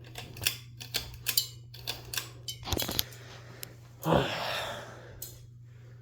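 Ceiling fan pull chain being worked: quick clicks and light metallic rattling of the bead chain for about three seconds, then a short rushing noise a little after four seconds, over a steady low hum.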